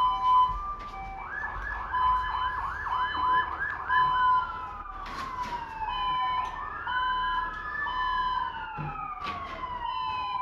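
Several emergency-vehicle sirens sounding at once and overlapping: a fast yelp of about three quick sweeps a second early on, steady on-off tones, and then slow falling wails from a little before halfway on. A few brief clicks are mixed in.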